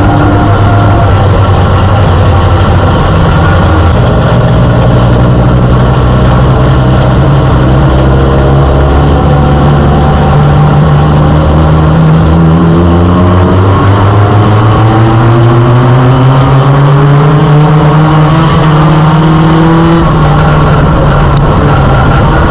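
Mini stock race car's four-cylinder engine, heard loud from inside the cockpit at a fairly steady pitch. Its pitch climbs slowly over several seconds, then eases off near the end.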